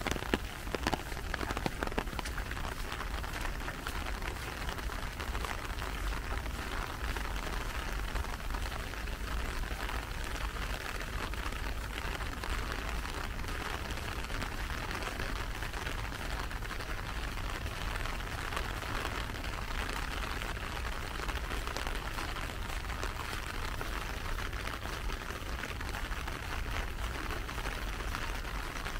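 Steady rain falling: an even patter of raindrops, with a few sharper drip-like taps in the first couple of seconds.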